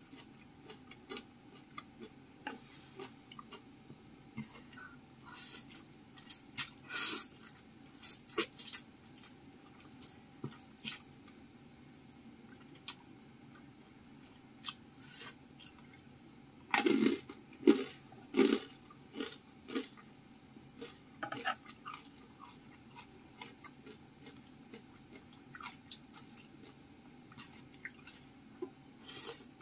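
Close-miked mukbang eating sounds: chewing spicy fried noodles and sausage slices, with many small wet mouth clicks. A brief louder stretch comes about seven seconds in, and a cluster of loud bites around the middle.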